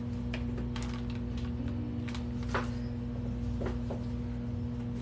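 A steady electrical hum, with a few brief, faint rustles of fabric as a dress is pulled on.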